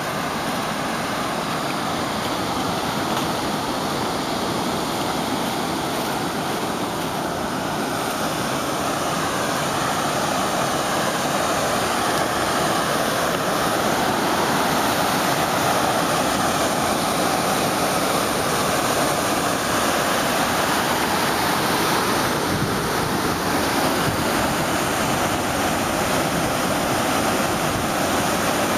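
Steady rush of river water pouring over a low dam's spillway, growing a little louder about a third of the way in.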